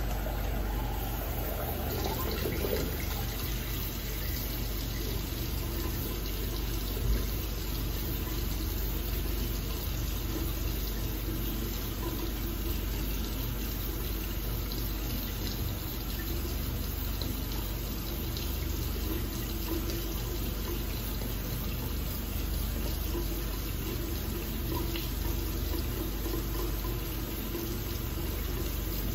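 Water running steadily from a tap into a sink over a constant low hum, with one short knock about seven seconds in.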